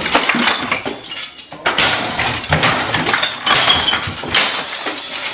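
Repeated crashing and smashing with glass breaking and clinking, as things are struck with a swung object.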